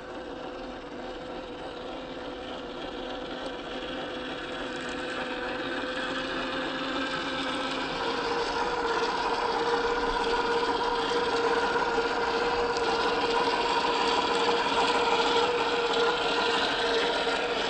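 Electric motor and geared drivetrain of a 1/10 scale RC crawler on a Boom Racing BRX01 chassis, whining steadily as it drives. It grows louder over the first half, then holds steady.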